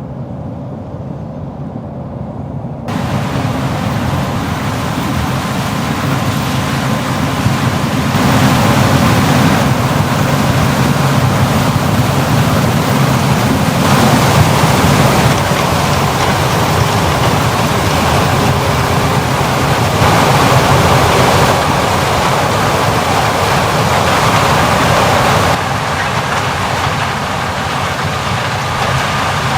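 Heavy diesel farm machinery running steadily during a corn harvest, a deep engine hum under a broad mechanical hiss, the mix growing louder or softer every few seconds.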